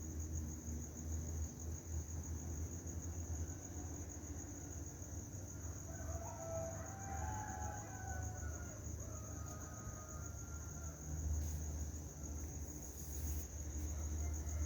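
Steady high-pitched chirring of crickets with a low rumble underneath; about six seconds in, a rooster crows faintly.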